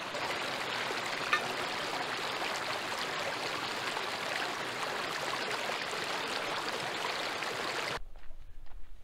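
Shallow mountain creek running over rocks, a steady hiss of flowing water, with one sharp click about a second in. Near the end the water sound cuts off suddenly.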